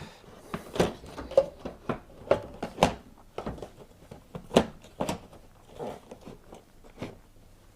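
Irregular plastic clicks and knocks as a tumble dryer's water drawer housing is handled and pushed back into position inside the machine.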